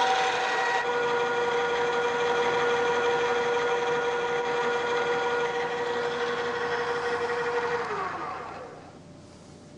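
Machine-tool spindle motor running steadily with a center drill cutting the starting hole, a hum with a clear pitched whine. Near the end it is switched off and winds down, the pitch falling until it stops.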